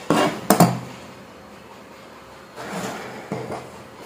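Fabric scissors snipping through cotton blouse cloth, a few sharp cuts in the first second. After that comes softer rustling as the cut pieces are slid across a wooden table.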